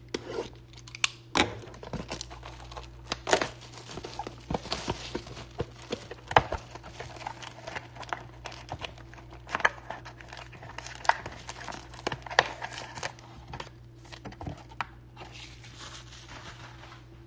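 Plastic shrink wrap on a trading-card hobby box being slit with a utility knife and torn away, then the cardboard box opened and a foil card pack pulled out: irregular crinkling and tearing of plastic, with sharp clicks and knocks of cardboard.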